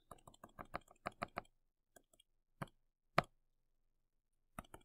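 Faint computer mouse clicks: a quick run of about ten in the first second and a half, then a few single clicks, the loudest about three seconds in.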